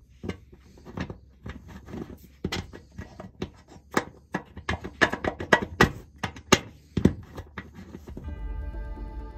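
Irregular sharp clicks and knocks of fingers pressing and working a self-tapping roofing screw on black sheet-metal roofing. Electronic background music begins about eight seconds in.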